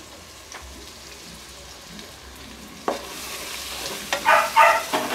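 Chopped capsicum and onion frying in oil in a pressure cooker while a spatula stirs them: a steady sizzle with scraping and stirring. There is a sharp knock about three seconds in and a few short squeaks near the end.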